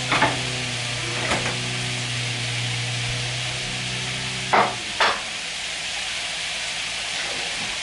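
Meatballs frying in a little oil in a stainless steel frying pan, a steady sizzle. A few knocks come near the start, with two louder ones just past halfway, and a low hum stops about the same time.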